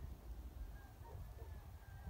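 Quiet outdoor ambience: a faint steady low rumble with a few faint, short distant bird calls.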